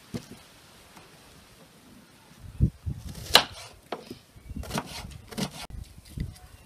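Kitchen work at a counter: quiet for a couple of seconds, then a run of about six light knocks and clicks on a hard surface.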